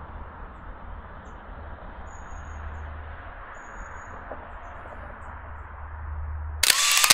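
Outdoor ambience of steady low rumble and hiss, with a few faint high bird whistles and chirps. Near the end a loud rush of noise, then the sound cuts off abruptly.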